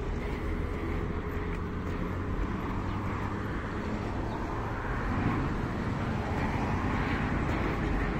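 Steady traffic noise from a nearby city road: a continuous low rumble and rush of passing vehicles.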